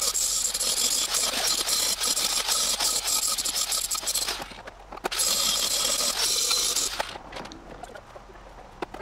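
Millermatic MIG welder crackling as it lays a bead on the steel roll-cage tubing. It runs in two stretches: one of about four seconds, a brief stop, then another of about two seconds.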